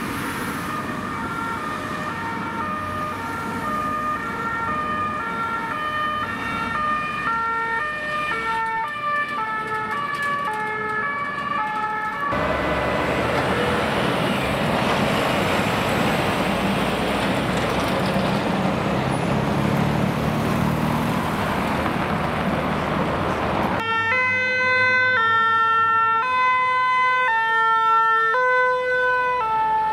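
French two-tone emergency sirens: first several police vans' two-tone sirens overlapping as a convoy passes. Then about eleven seconds of heavy vehicle engine and road noise with no siren as a police water-cannon truck goes by. Then, near the end, a Paris fire engine's two-tone siren, loud and alternating steadily.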